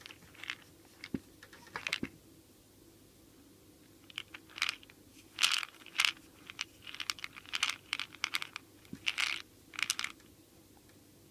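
Supplement tablets and their bottle being handled: an irregular string of short clicks, rattles and rustles, sparse at first, then a busy run for the second half after a brief pause.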